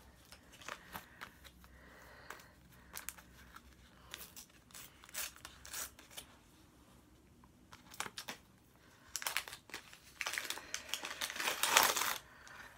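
A sticker packet being torn open and the stickers inside handled: scattered small rustles and clicks, then a louder stretch of tearing and crinkling near the end.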